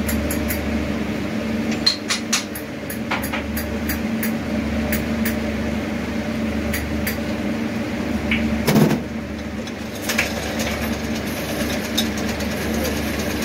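Steady electric-motor hum of workshop machinery, with scattered light metal clinks from a piston, gauge and cylinder being handled and set on a cylinder-boring machine. There is a louder clank about nine seconds in.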